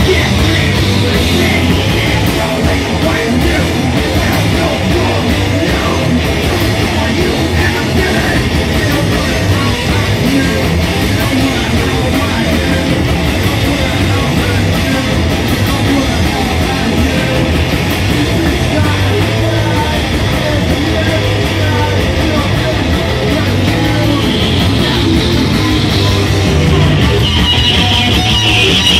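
A live rock band playing loud and steady: electric guitars over a full drum kit.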